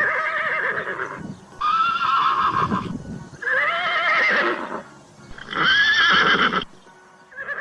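Horse whinnying four times in a row, each call about a second long with a quavering, shaking pitch, separated by short pauses; another whinny begins at the very end.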